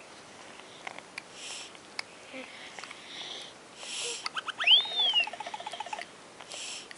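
A child's soft breaths through a tracheostomy, a whoosh every couple of seconds. About four seconds in, a short electronic sound effect from a children's sound toy plays: a few quick beeps, a whistle sliding up and back down, then a fast run of chirping tones that stops about a second later.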